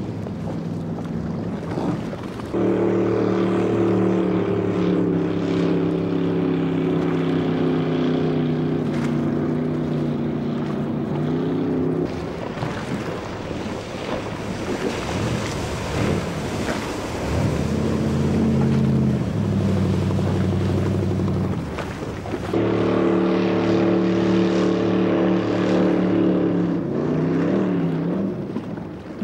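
The Q Boat stunt speedboat's engine running hard at speed, a steady multi-toned engine note that comes in loud about two and a half seconds in, drops away about twelve seconds in, returns at a lower pitch for a few seconds and comes back loud again before fading near the end. A hiss of water spray and wind on the microphone runs underneath.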